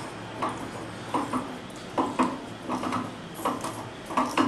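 Irregular light metallic clinks and knocks, often in pairs, as a drill-press chuck holding a 5/16-18 tap is turned by hand to cut an internal thread.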